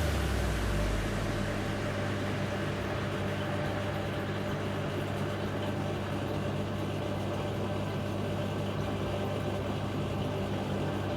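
LG 8 kg washing machine running with a steady low hum over even mechanical noise; a low tone slides down and fades in the first second or so.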